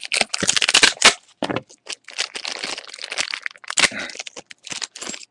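Cardboard box and plastic toy packaging being handled and opened by hand: dense, irregular crackling and crinkling.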